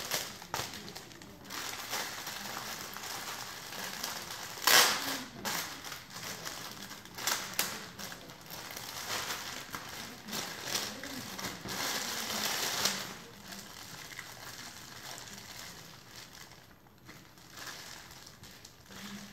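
Thin plastic packaging bags crinkling and rustling as they are handled and unwrapped, in irregular bursts with a louder crackle about five seconds in.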